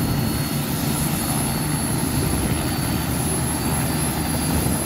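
Bell 206 JetRanger helicopter running at high power on the pad just before lift-off: a steady rotor-and-engine rumble with a thin, steady high turbine whine above it.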